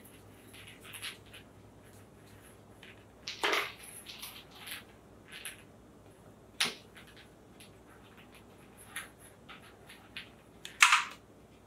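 A whole walnut in its shell batted by kittens across a tiled floor, knocking and rolling in irregular clicks and scrapes, with three louder knocks spread through.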